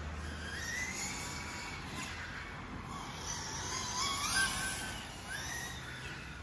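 Radio-controlled touring car's electric motor whining, its pitch rising and falling as the car speeds up and slows for the corners, loudest a little past the middle.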